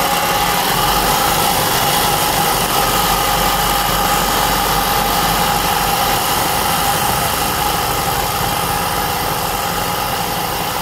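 Electric sewing machine running steadily at constant speed, its needle stitching freehand machine embroidery, with an even whine.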